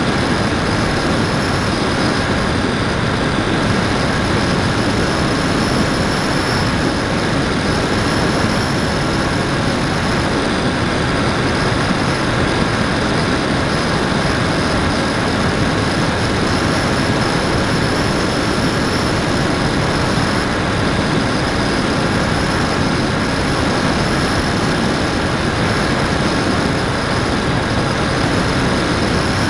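Electric motor and propeller of an FPV Raptor model plane, heard from the onboard action camera, running with a steady high whine over heavy rushing air noise. The pitch wavers only slightly with the throttle.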